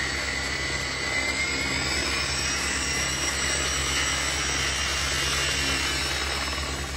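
Helicopter running: a steady pulsing drone under a high whine that rises in pitch, fading near the end.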